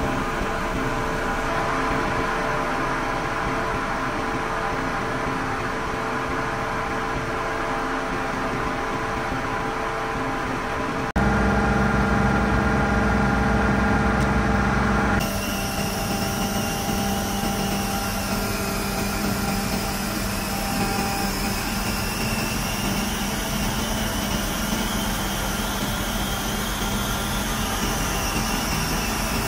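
Grove TM1500 truck crane's diesel engine running steadily at idle, a constant mechanical hum with several steady tones. About eleven seconds in it becomes abruptly louder and deeper for about four seconds, then returns to a lighter hum.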